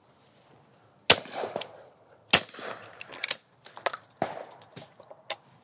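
Two shotgun shots from an old Miroku over-and-under, about a second apart, the second louder, each with a short echo. Then come several sharp clicks and clacks as the gun is broken open, the spent cases come out and it is reloaded.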